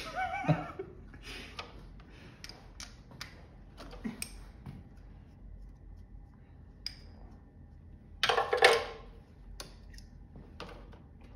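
Small clicks and taps of a carburetor and its rubber fuel lines being handled and fitted by hand, with one louder scraping burst about eight seconds in.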